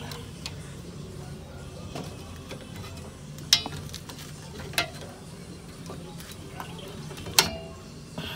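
Steel pliers clinking against the return springs and shoe hardware of a Kia Pride's drum brake while the springs are taken off: light ticks and three sharp, ringing metallic clinks, the first about three and a half seconds in and the last near the end.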